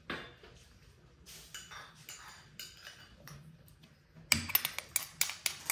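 Kitchenware clinking during food preparation: a few soft knocks, then about four seconds in a quick run of sharp, bright clinks.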